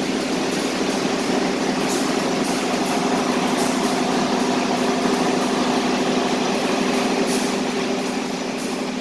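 Diesel locomotive idling at a station platform: a steady engine hum with an even hiss over it, easing off slightly near the end.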